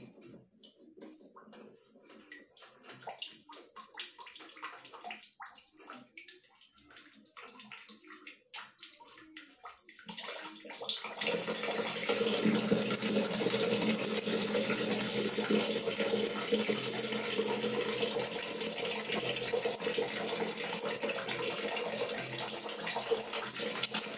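Scattered light metal clicks and knocks of a wrench working on a wall-mounted shower mixer's fittings. About ten seconds in, water from the mixer's spout starts pouring steadily into a plastic bucket.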